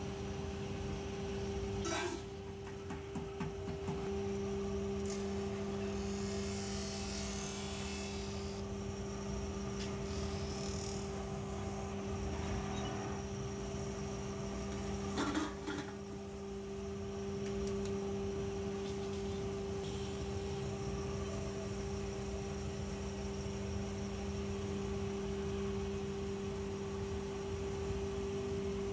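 Electric lathe motor running with a steady hum while an aluminium pot spins on its spindle. Sharp knocks of metal being handled come about two seconds in and again about fifteen seconds in.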